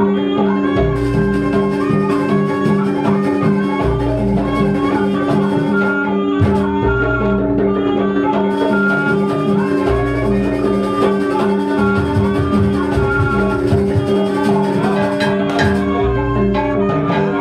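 Jaranan dance accompaniment: a gamelan-style ensemble of tuned metal percussion and drums playing a busy melody over steady held tones, with a deep low note returning about every three seconds.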